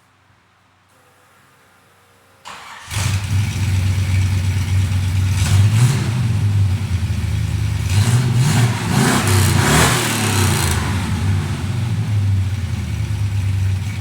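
1987 Dodge Ram pickup's carbureted engine starting after a brief crank about two and a half seconds in, then running loud through its new exhaust, revved twice before settling to a steady idle.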